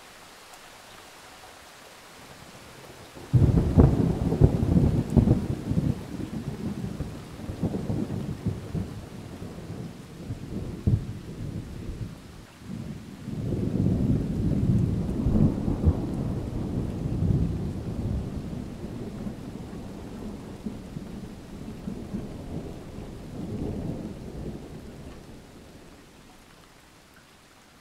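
Two long rolls of distant thunder over a steady hiss of rain. The first cracks in suddenly a few seconds in and rumbles on for about nine seconds. The second swells up soon after and slowly rumbles away before the end.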